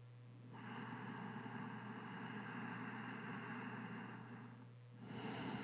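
A person breathing audibly into the microphone during a pause in speech: one long breath of about four seconds, then another starting near the end, over a steady low electrical hum.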